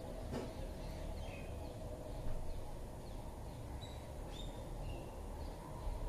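Faint, short bird chirps and whistles scattered over a steady low background hum, several of them rising or falling in pitch, with a single tap about half a second in.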